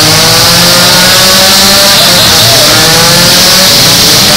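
Demolition derby cars' engines running hard at high revs, loud and continuous, one engine's pitch sagging and climbing again about halfway through.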